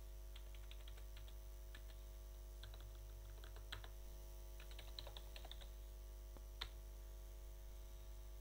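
Computer keyboard keys being typed, faint clicks in short quick runs with one sharper keystroke late on. A steady electrical mains hum runs underneath.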